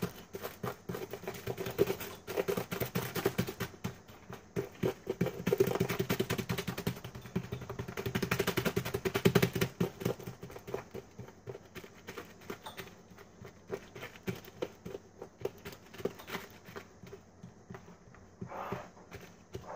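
Pomegranate seeds being crushed by hand inside a sealed plastic zipper bag, pressing out their juice: a dense run of small crackles and pops with the plastic crinkling. It is busiest in the first half and thins out later.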